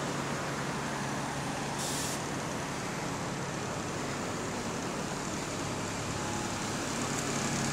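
Double-decker bus engine idling while the bus stands at the stop, a steady hum, with a short hiss of released compressed air about two seconds in.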